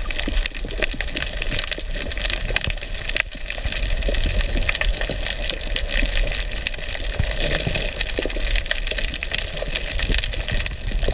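Underwater water noise picked up by a snorkeler's GoPro: a steady rushing with a low rumble and many sharp crackling clicks scattered throughout.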